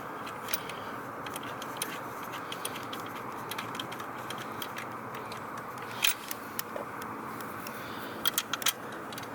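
Scattered light metallic clicks and clinks from bolts and hand tools being handled during a seat-swivel install, over a steady background hiss. The loudest click comes about six seconds in, and a quick cluster follows a little after eight seconds.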